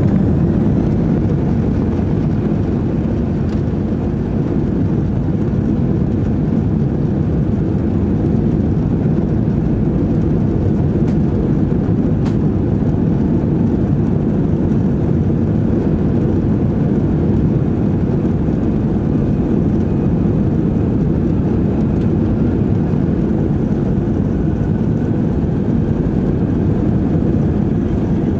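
Airbus airliner's jet engines running steadily at low power, heard from inside the passenger cabin while taxiing: an even low rumble with no rise in power.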